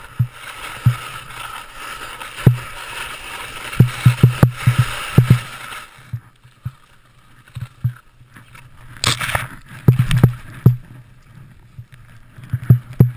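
Skis hissing through deep powder snow for about the first six seconds, then going quieter, with many dull irregular knocks from the jolts of the descent and a short louder rush of snow about nine seconds in.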